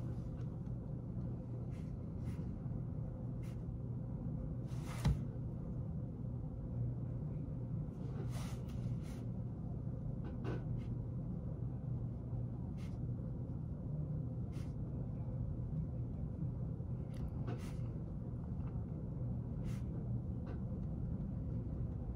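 Steady low room hum, with faint scratches and taps of a pen writing on paper and one sharper tap about five seconds in.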